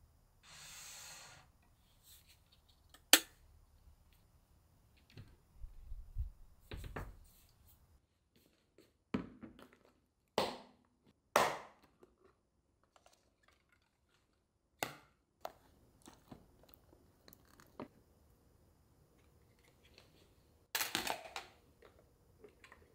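Plastic bowl, lids and containers being handled on a countertop: scattered clicks, taps and knocks with short rustles, and a brief hiss about half a second in.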